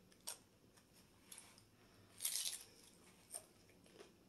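Crunchy hard taco shell bitten, with one crackly crunch lasting about half a second near the middle, then faint chewing and a few small clicks.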